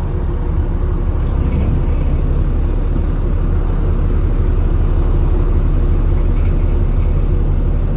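Alexander Dennis Enviro400 double-decker bus's diesel engine running with a heavy, steady low rumble. Over it is a faint high whine that drops out about a second in and comes back about a second later.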